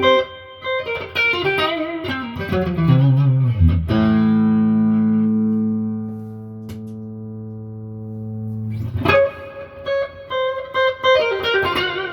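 Electric guitar played through a tube amp with its spring reverb set very wet: a run of picked notes, then a chord struck about four seconds in that rings out and slowly fades, then more picked notes near the end. The reverb is clean and free of noise after the repair with new reverb cables and a new V2 valve.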